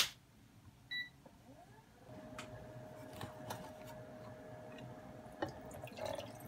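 A sharp click, then an induction hob gives a short beep as it is switched on and settles into a steady electrical tone with a low hum while heating a stainless steel saucepan. Near the end, water starts pouring from a plastic measuring jug into the pan.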